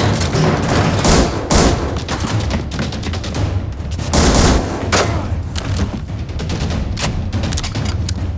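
Film-soundtrack gunfight: dense, irregular volleys of gunfire, many shots close together with louder cracks scattered through, over a score with a steady low pulse.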